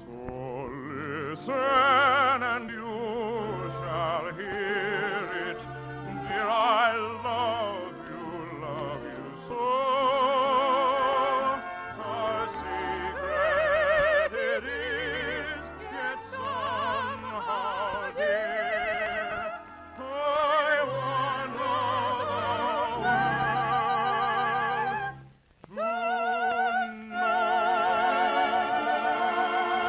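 Operetta singing with wide vibrato over orchestral accompaniment. The music breaks off briefly about 25 seconds in, then a new held phrase begins.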